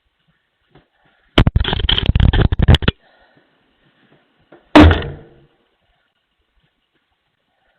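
Rapid, heavy pounding on a front door for about a second and a half, then one loud bang that dies away quickly.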